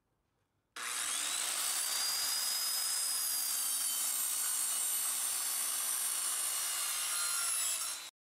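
Circular saw cutting through a wooden board: a steady cutting noise with a faint high whine, starting just under a second in and stopping suddenly near the end.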